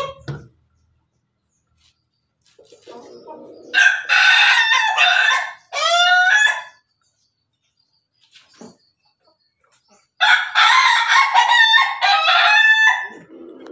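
Ayam ketawa (Indonesian laughing chicken) rooster crowing twice, each crow about three seconds long and broken into a run of quick, choppy notes toward its end.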